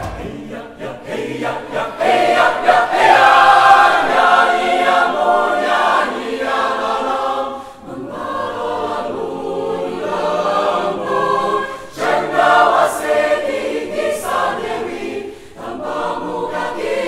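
A choir singing in several voices, with brief breaks between phrases about eight, twelve and fifteen seconds in.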